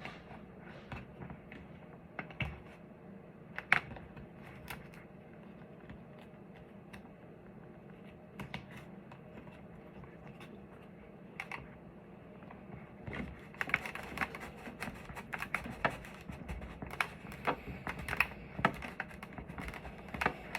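Light, irregular clicks and taps from hands working a helmet communication unit's mount against a motorcycle helmet shell, sparse at first with one sharper click about four seconds in, then coming thick and fast over the last several seconds.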